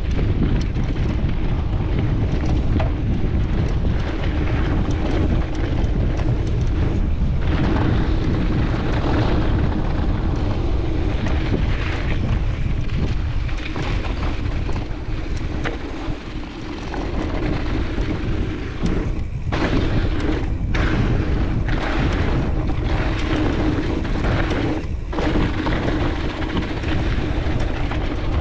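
Wind buffeting a chest-mounted action-camera microphone while a mountain bike rolls downhill on a dirt trail, with steady tyre noise and frequent clicks and rattles from the bike over bumps.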